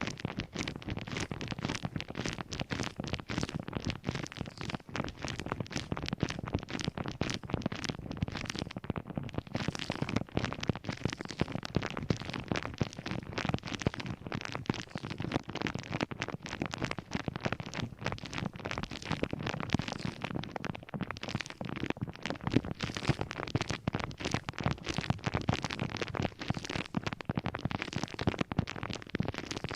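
Rapid, continuous scratching and crackling clicks from an object being handled for ASMR, many small clicks a second without a break.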